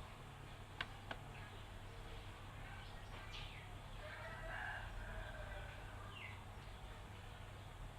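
Two mouse clicks about a second in. Later a faint, drawn-out bird call in the background ends in a falling note, over a steady low hum.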